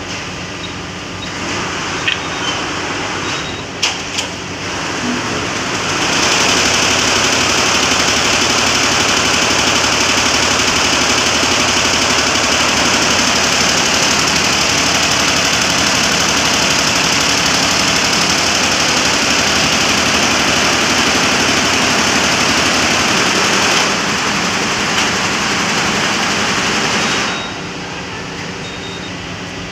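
A 24-head Barudan embroidery machine started from its control panel: a couple of clicks, then about six seconds in the heads start stitching with a loud, steady mechanical running noise. It eases slightly a few seconds before it stops, about three seconds before the end, leaving a lower steady background hum.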